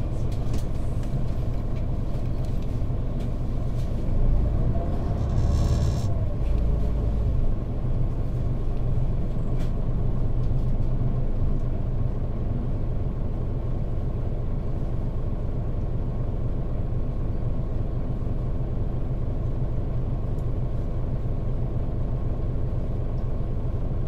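Mitsubishi Fuso KL-MP35JM bus's 12.9-litre naturally aspirated 6M70 diesel running with a steady low rumble, swelling for a few seconds about four seconds in. A short hiss comes about five seconds in.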